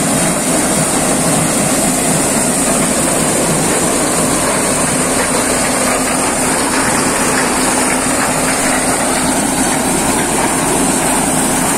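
Tractor-driven maize thresher (corn sheller) running steadily under load: the tractor engine and the spinning threshing drum make one even, continuous machine noise with a steady low hum and a high hiss.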